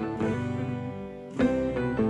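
Instrumental background music with plucked string notes.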